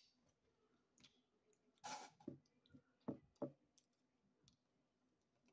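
Faint scattered clicks and cracks from eating snow crab legs: shell being cracked and picked apart, and mouth sounds of chewing. The sharpest crack comes about two seconds in.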